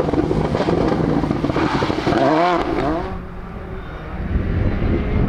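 Volkswagen Polo rally car's engine revving hard as it accelerates away, its pitch rising and dropping through gear changes about two seconds in. After a sudden cut about three seconds in, a quieter, more distant rally car engine drone.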